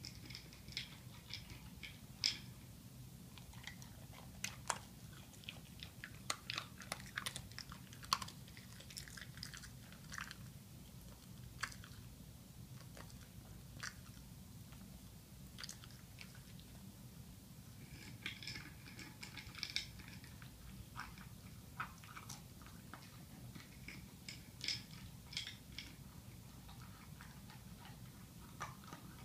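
Scottish Terrier eating dry kibble from a bowl: irregular sharp crunches that come in clusters, thinning out for a few seconds near the middle while she lifts her head.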